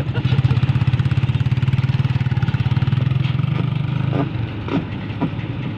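Heavy diesel engine of a tracked machine running with a steady low throb, easing off about four seconds in, with a few short knocks after that.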